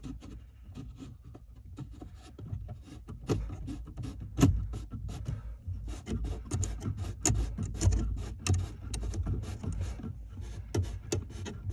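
Hands threading a thumb screw into a plastic mount bracket: irregular small clicks, scrapes and rubbing of screw and plastic being handled.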